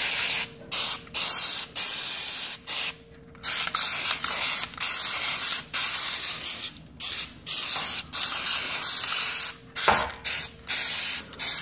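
Aerosol can of spray lubricant hissing in repeated bursts, some short and some a second or more long, with brief gaps between, as garage door springs are soaked with lube.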